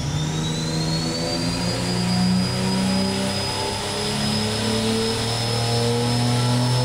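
Turbocharged Ford 300 4.9-litre inline-six making a full-throttle dyno pull at about 6 psi boost. Its note climbs steadily as the revs sweep up, with a high turbocharger whistle that rises and then holds.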